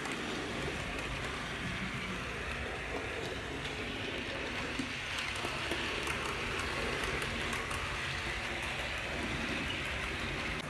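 A Hornby Terrier OO gauge model tank locomotive running at a steady speed with two coaches, its motor and wheels on the track giving a steady noise, against rain falling outside.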